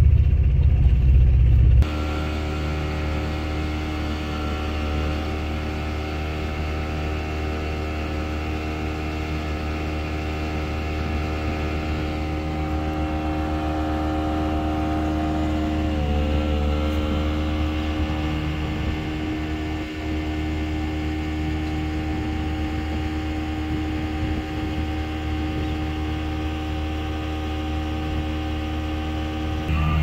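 A motorboat's engine running steadily at cruising speed, a constant hum that dips briefly in pitch about halfway through. A heavier low rumble fills the first two seconds and cuts off abruptly.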